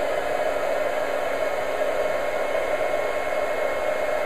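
Handheld embossing heat tool running steadily, a hair-dryer-like hum of its fan blowing hot air to melt embossing powder on stamped leaves.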